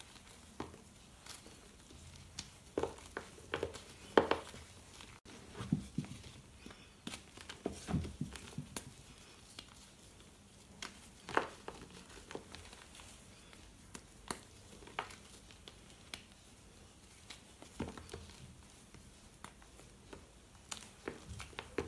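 Chunks of reformed gym chalk being crushed and crumbled by hand, giving irregular dry crunches and crackles, with broken pieces pattering down into loose chalk powder. The loudest crunches come about four seconds in and about eleven seconds in.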